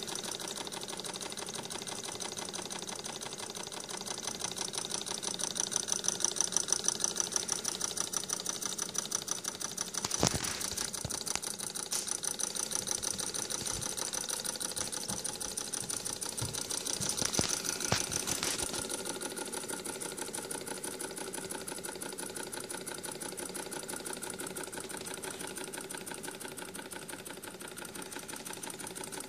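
Small homemade alcohol-fired Stirling hot air engine running steadily, its piston, crank and linkages making a fast, even mechanical clatter. A few louder knocks come near the middle.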